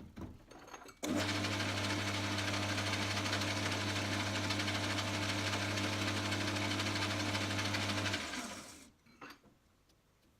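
Electric motor of a metalworking machine tool switched on about a second in, running steadily for about seven seconds, then switched off and running down. A few light clicks come before it starts.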